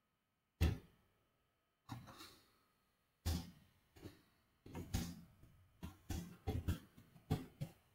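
Faint computer keyboard typing: scattered key taps, sparse at first and closer together in the second half.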